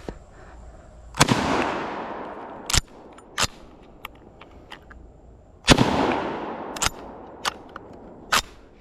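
Two shots from a Steyr M95 straight-pull bolt-action rifle, about four and a half seconds apart, each trailing off in a long echo. After each shot come sharp metallic clicks as the straight-pull bolt is worked.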